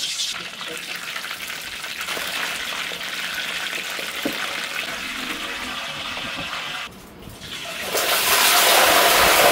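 Water running from a tap in a steady stream. It drops out briefly about seven seconds in, then runs louder from about eight seconds.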